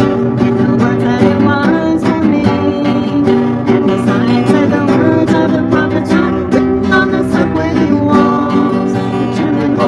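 Music led by an acoustic guitar, strummed and plucked in a steady rhythm.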